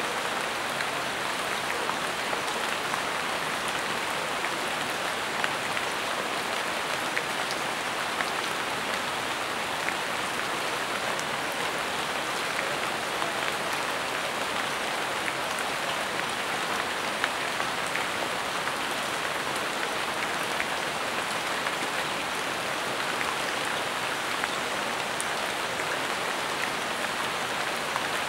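Steady rain falling on dense tropical foliage: an even hiss with scattered sharper ticks of single drops.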